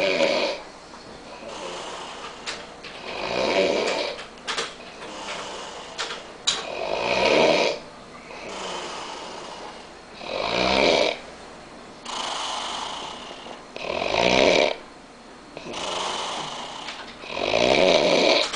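A man snoring heavily in his sleep: a loud snore about every three and a half seconds, five in all, with a quieter breath sound between each.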